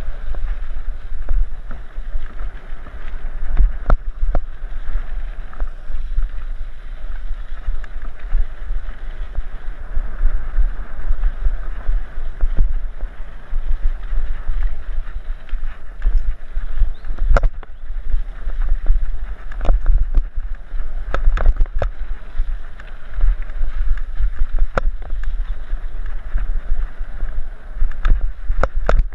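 Wind buffeting a helmet-mounted camera's microphone while a mountain bike rolls along a dirt trail, with a steady tyre rumble. Sharp clicks and knocks from the bike rattling over bumps and stones come in clusters, most of them in the second half.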